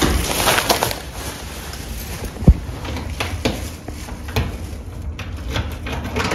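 Scattered sharp knocks and clicks of footsteps and handling over a low steady rumble, the loudest knock about two and a half seconds in; a wooden front door's handle is worked in the second half.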